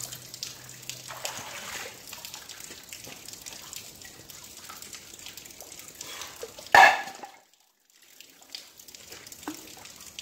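River water flowing and trickling steadily around the rocks. About seven seconds in there is a single sudden loud noise, after which the sound cuts out for about half a second.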